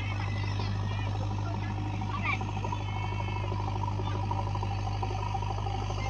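JCB backhoe loader's diesel engine running with a steady low drone as the machine digs. A few brief high chirping calls sound over it near the start and about two seconds in.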